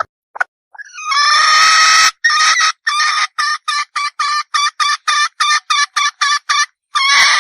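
Red junglefowl hen calling: a few short clucks, then a long drawn-out note about a second in, followed by a fast run of short clipped notes, about three or four a second, ending on a longer note.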